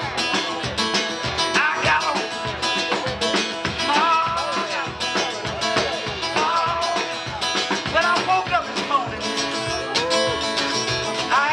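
Live blues played on an acoustic guitar and a drum kit with a steady beat, a man singing over them.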